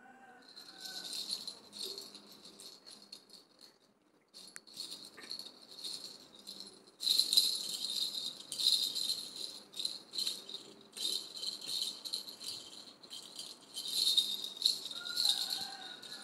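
A baby grabbing, shaking and pushing a plastic rattle toy with coloured rattle balls, making irregular bursts of rattling. It grows louder and busier from about seven seconds in.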